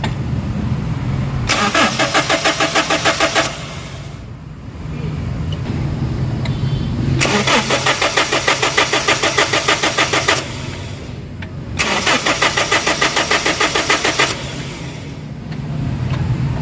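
Toyota Innova engine cranked on the starter three times, two to three seconds each, with a fast even churning rhythm, and it never catches. It cranks without starting because no fuel pressure is reaching the fuel rail.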